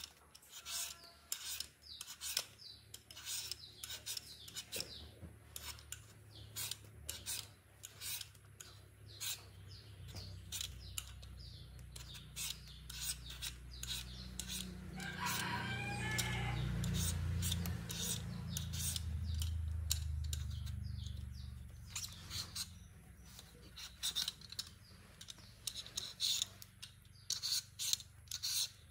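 Many short, sharp scraping strokes repeated through the whole stretch. A low rumble swells and fades in the middle and is the loudest sound.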